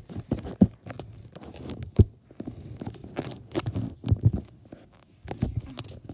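Irregular knocks, bumps and rubbing from the recording device being handled and moved close to its microphone.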